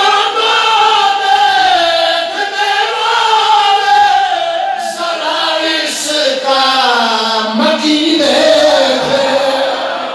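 A voice chanting a devotional recitation in long, drawn-out notes that waver up and down.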